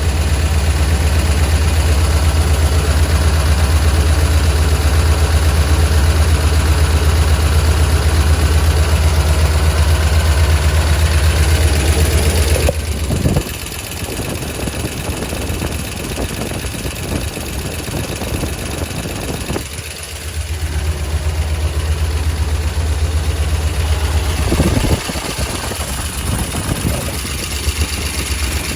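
Engine idling steadily, recorded to check for a valve-lifter tick that the uploader suspects. The engine sound drops in level about 13 seconds in and rises again around 20 seconds.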